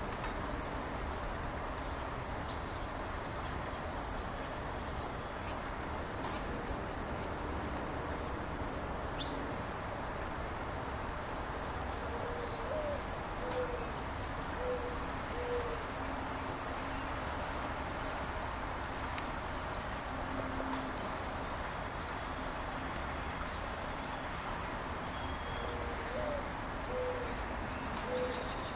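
Steady rain hiss with a mourning dove cooing its song twice, about halfway through and again near the end: a rising first coo followed by a few lower, even coos. Faint high chirps from small birds come and go.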